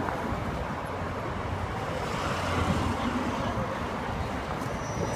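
Busy city street traffic: a steady rumble of passing cars with a faint murmur of voices.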